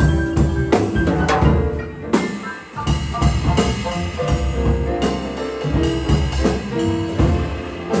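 Jazz band of piano, bass and drum kit playing an instrumental passage with no singing; the drum kit is prominent throughout.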